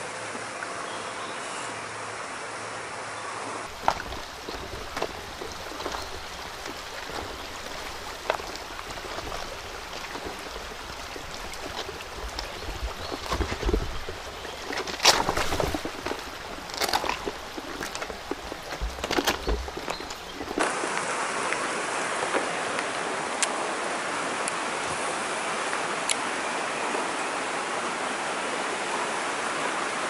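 Shallow stream running over rocks as a steady rushing of water. Through the middle stretch there are scattered clicks and knocks and some low rumbles over it.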